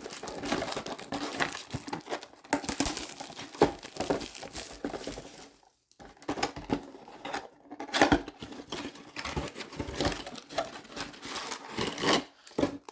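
Wrapping crinkling and tearing in irregular bursts as a blaster box of hockey cards is unwrapped and opened, with a short pause about halfway through.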